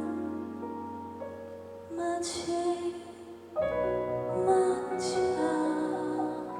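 Closing bars of a live pop ballad over a concert PA: sustained band and keyboard chords with a female singer's voice, a fresh, fuller chord coming in about three and a half seconds in.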